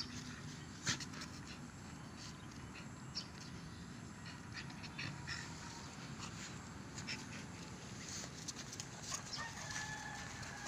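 Light clicks and scuffs of dogs' paws on a gravel dirt path, over outdoor background noise. A rooster crows faintly in the distance.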